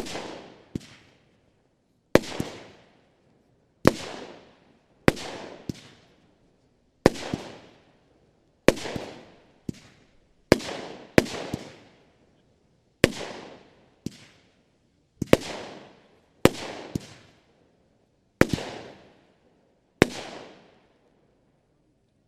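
Argento Matrix 20 mm 16-shot firework battery firing shot after shot, about one every second or so. Each shot is a sharp bang followed by a fading tail, and the volley stops shortly before the end.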